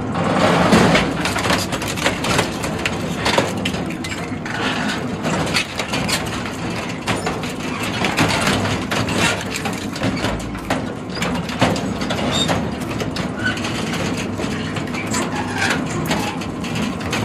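Twin-shaft industrial shredder's hook blades chewing a sheet-steel cargo bed with a diamond-plate floor: continuous irregular crunching and cracking of tearing metal over the steady drone of the machine.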